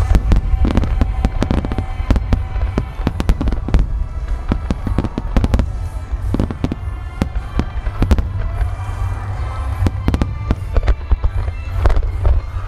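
Volley of aerial firework shells bursting overhead: dozens of sharp bangs in rapid succession, with music playing underneath.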